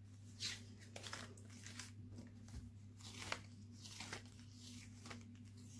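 Faint rustling and crinkling as the slick pages of a spiral-bound sticker book are turned, with a soft swish about every second, over a low steady hum.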